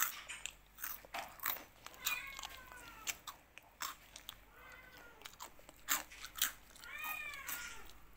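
A cat crunching dry kibble, with lots of short sharp crackles. It gives two short meows, one about two seconds in and one near the end.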